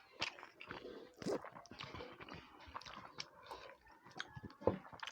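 Close-up chewing and mouth sounds of people eating a meal by hand: irregular wet smacks, clicks and soft crunches.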